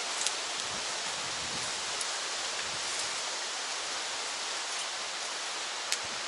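A steady, even hiss with a few faint clicks; it cuts off abruptly near the end.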